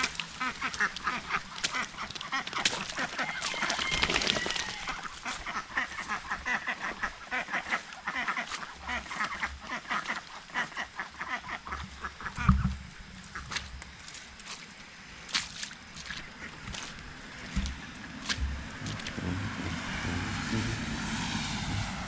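A flock of ducks quacking in quick, overlapping calls for the first twelve seconds or so, then calling only now and then. A few low thumps stand out, the loudest about halfway through.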